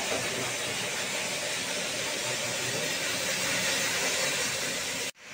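Steady hissing machinery noise of a stone-crushing plant, with no clear rhythm. It cuts out for a split second near the end.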